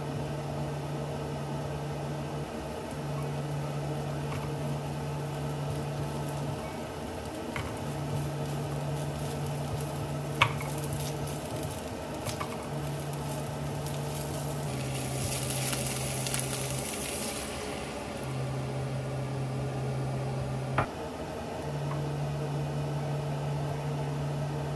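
Food sizzling steadily in a hot frying pan, the hiss growing stronger for a couple of seconds in the middle. Two sharp clicks, like a utensil tapping the pan, come about ten and twenty seconds in, over a low hum that switches on and off every few seconds.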